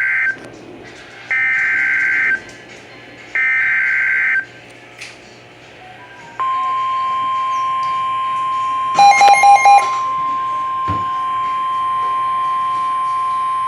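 Emergency Alert System SAME header: three warbling digital data bursts, each about a second long and a second apart. After a short pause a steady single-pitch attention tone near 1050 Hz begins, with a brief cluster of beeps about three seconds into it. It signals the start of a new weather warning broadcast.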